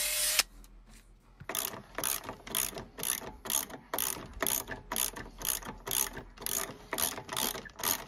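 A cordless drill's wire brush wheel runs briefly and cuts off. After a short pause, a hand ratchet clicks in steady strokes, about three a second, as it turns the screw of a bush press pressing the old bush out of the rear axle beam's eye.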